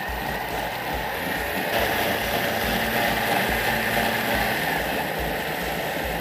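Vorwerk Thermomix running at full speed, blending cooked red cabbage into a purée: a steady motor whir and churning. A faint high whine rises slightly near the start, and the sound grows a little louder about two seconds in.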